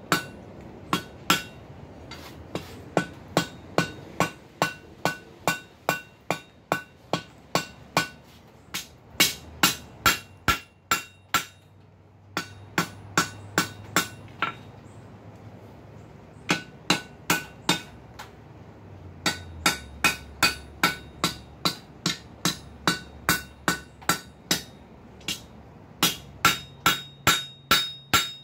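Hand hammer striking hot steel flat stock on an anvil: a steady run of sharp, ringing blows, about two to three a second, with a couple of short breaks midway. The smith is rounding the corners of an offset square on the bar's end into the round pad of a half-penny scroll.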